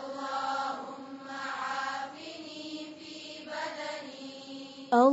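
Voices chanting an Arabic supplication in unison, holding a steady monotone pitch. The line sounds smeared, as of several voices together.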